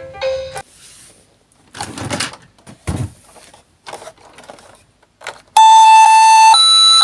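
Light handling rustles, a dull thump and small clicks from a toy minicar. Then, from just past halfway, loud electronic siren tones, each held about a second before jumping to a new pitch.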